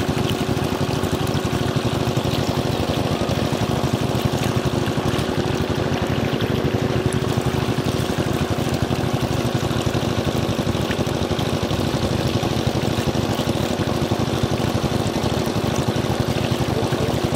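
A water pump's engine running steadily, with water pouring from its outlet hose through a net into a woven bamboo basket.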